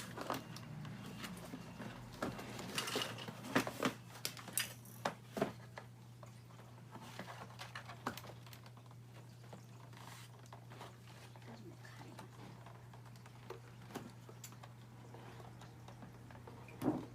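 Scattered light clicks and taps of hands handling a toy box and its plastic packaging, thickest in the first eight seconds and sparser after. A steady low hum runs underneath.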